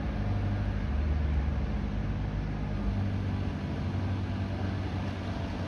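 A steady low mechanical hum over a faint background hiss.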